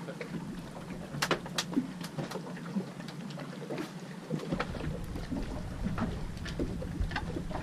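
Sounds aboard a small boat at sea: irregular knocks and clicks over a steady low hum, with wind rumble on the microphone from about four and a half seconds in.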